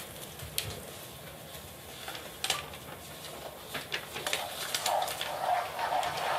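Many pens scratching and rubbing round in circles on paper, with a few sharp clicks and taps at first; the scratching thickens into a dense, continuous rustle from about four seconds in.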